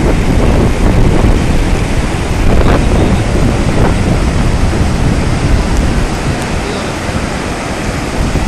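Flash floodwater rushing in a steady, loud churn, with wind buffeting the microphone.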